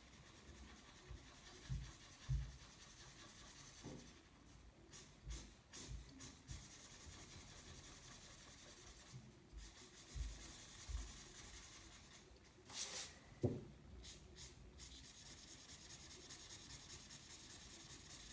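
A felt-tip marker scratching faintly across paper in quick repeated colouring strokes, with a few soft knocks in between.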